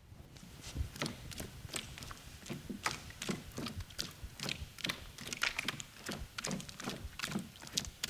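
Bare feet stamping quickly in a shallow pool of oobleck, a cornstarch and water mix, making a steady run of wet slaps and squelches about two to three a second. The mix firms up under each fast step.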